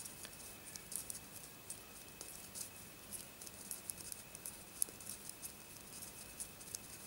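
Knitting needles clicking faintly and irregularly as stitches are knitted on circular needles, several small ticks a second with a light scratch of yarn.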